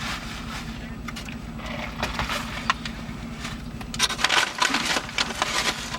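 Paper food bag and wrappers rustling and crinkling in irregular bursts, busier and louder in the last two seconds, over a steady low hum.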